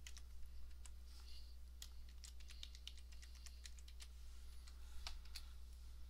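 Faint typing on a computer keyboard: irregular, scattered keystrokes, over a steady low electrical hum.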